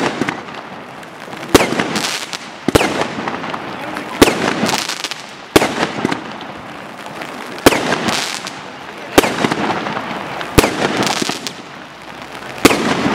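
Aerial fireworks firing and bursting: eight sharp bangs, about one every one and a half seconds, each trailing off over about a second.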